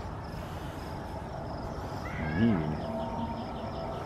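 A dog gives one short groan about halfway through, rising and then falling in pitch, over a steady, even pulsing of crickets chirping.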